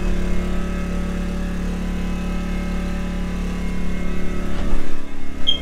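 Steady drone of a generator engine running outside the fifth-wheel trailer, heard from inside. Near the end its low part thins out and a brief high chirp sounds.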